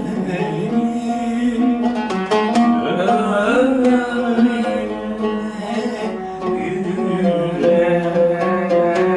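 A man singing a long, ornamented phrase of a Turkish art song in Rast makam touching on Hüseyni, accompanying himself with plucked notes on an oud.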